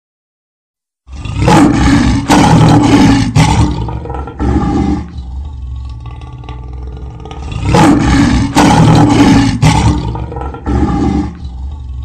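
Lion roaring in two bouts, each a run of loud, deep roars. The first starts about a second in and the second about halfway through.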